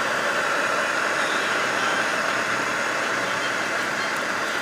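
Steady rushing noise, even in level throughout, with no distinct knocks, calls or pitched tones.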